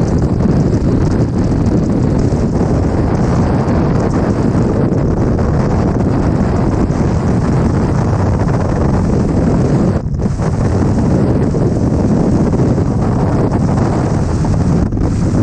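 Loud, steady wind roar buffeting the microphone, with a brief drop about ten seconds in.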